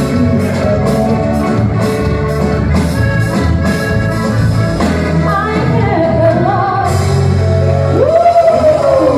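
Band music with a steady beat and heavy bass. A singer's voice comes in about five seconds in and is loudest near the end.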